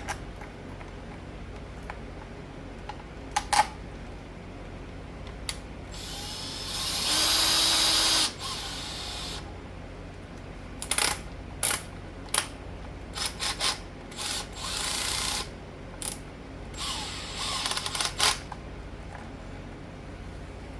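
Small power driver running screws into an RC truck's aluminium chassis brace: one longer whir of about two seconds, then a string of short bursts, with a few sharp clicks before them.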